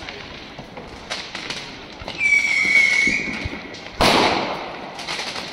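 Fireworks going off: scattered crackling pops, a high, slightly falling whistle lasting about a second from a whistling firework, then a loud bang about four seconds in.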